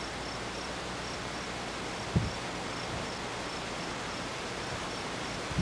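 Steady open-air background hiss with a faint high chirp repeating about three times a second, and a single low thump about two seconds in.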